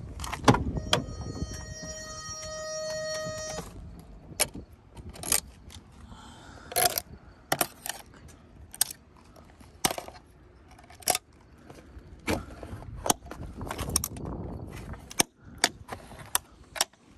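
Sharp metallic clicks, snaps and clinks, roughly one a second, as the zip ties holding a pop-up car camper shell's metal hinge struts are cut and the hinges handled. Near the start a steady electronic beep sounds for about three seconds.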